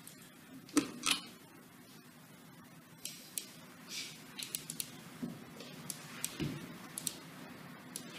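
Faint, irregular clicks and light taps of things being handled on a desk near an open microphone, with a soft low thump about six and a half seconds in.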